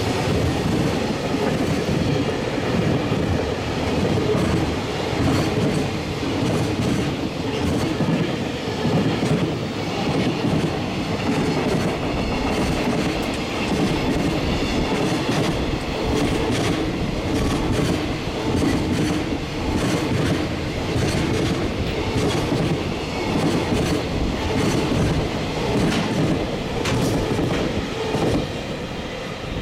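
Container wagons of a freight train rolling past close by at speed, their wheels clattering steadily over the rail joints in a continuous rumble.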